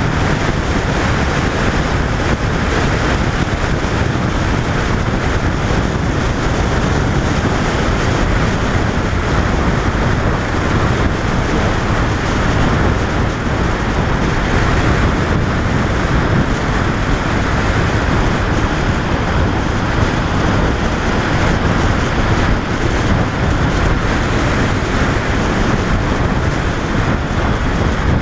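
Steady wind rush on a motorcycle-mounted camera's microphone while a 2005 Honda VFR 800 rides at road speed, with the bike's running noise underneath.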